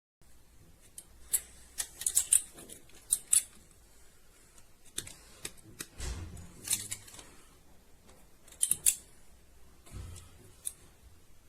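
Sharp metallic clicks and snaps of a folding camping multitool being handled, scattered irregularly with a few quick clusters of two or three clicks.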